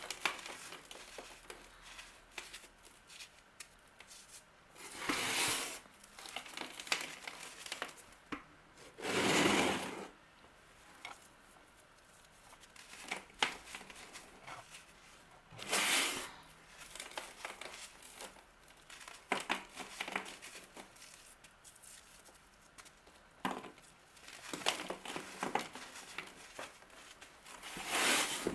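Crisp crunching and crumbling of a brittle material such as dry soap, chalk or kinetic sand being cut, pressed or crushed by hand. It comes in irregular bursts with scattered clicks, and a few louder crunches stand out.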